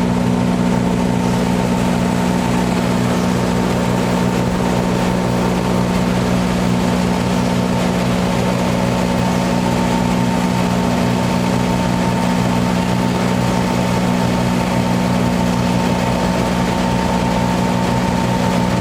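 Steady machine hum: an even drone made of several fixed low tones with a fainter higher whine over a background of noise, not changing in pitch or level.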